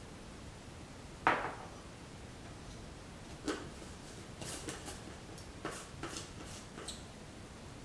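A sharp knock about a second in, then a run of small plastic clicks and scrapes as the blade lid is screwed onto a plastic personal blender cup.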